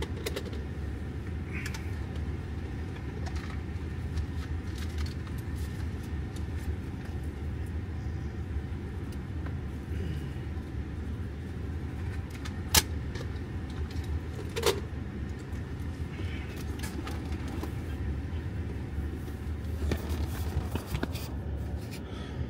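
Steady low rumble of a car running, with a couple of sharp clicks about halfway through.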